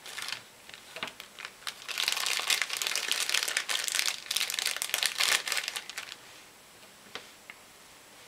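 Clear plastic stamp packaging crinkling as it is handled and opened, strongest for about four seconds in the middle, then dying down to a few faint clicks.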